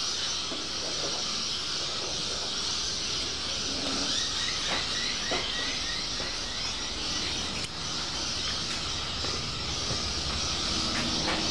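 Steady machine running noise, a hiss over a low hum. A faint light ticking comes about twice a second for a few seconds in the middle.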